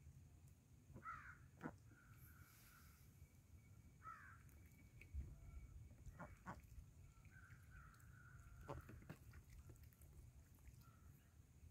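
Faint bird calls: a few short calls falling in pitch and some longer drawn-out ones, with a few sharp taps in between.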